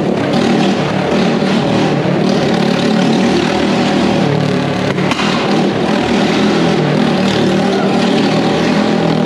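Motorcycle engine running steadily at high revs as the bike circles the wooden wall of a Wall of Death drum.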